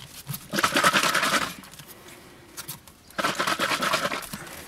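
Plastic bottle of oily homemade insect repellent being shaken hard, liquid sloshing and rattling in quick strokes, in two bouts with a pause of about two seconds between them.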